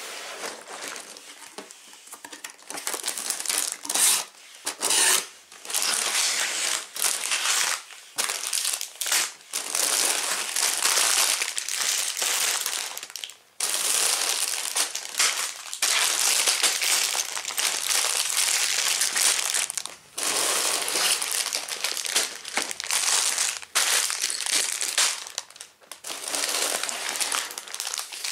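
Lego set box being opened by hand: cardboard flaps and the plastic parts bags inside rustling and crinkling in long irregular stretches, with short pauses between handlings.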